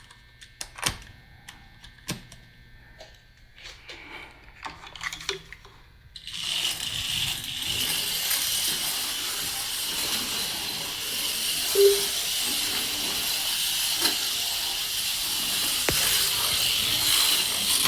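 HO-scale slot car: a few light clicks and knocks as it is set back in the slot, then its small motor and pickups running steadily round the plastic track with a high, even whirring hiss from about six seconds in.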